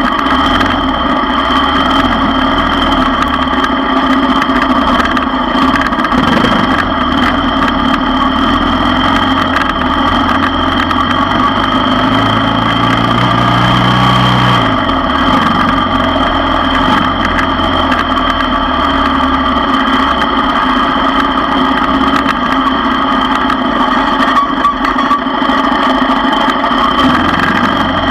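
ATV engine running steadily at low trail speed. Its note rises briefly about halfway through, then drops back.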